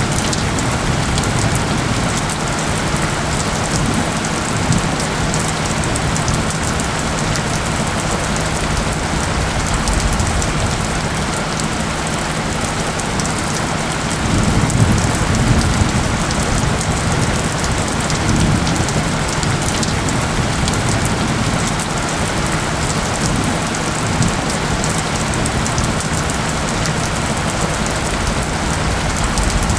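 Steady rain falling, a dense even patter, with a low rumble swelling about halfway through, much like distant thunder. A faint steady low tone runs underneath.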